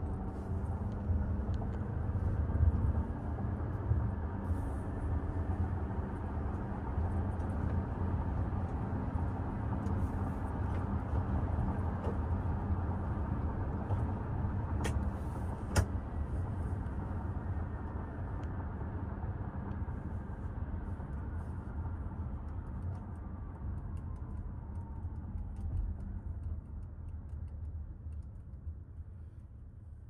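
Road and engine noise of a 2024 Toyota RAV4 Limited on the move: a steady low rumble of tyres and its 2.5-litre four-cylinder, with a sharp click about halfway through. The noise grows quieter over the last few seconds as the car slows.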